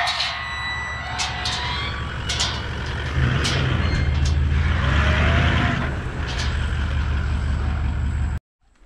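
A four-wheel drive's engine runs steadily, heaviest in the middle, while a steel pipe farm gate is swung open with several sharp metal knocks and a short squeak. The sound cuts off suddenly near the end.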